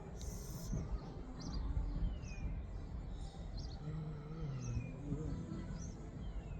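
Wind rumbling on the microphone at night, with short high chirps about once a second and a falling whistled call every two seconds or so.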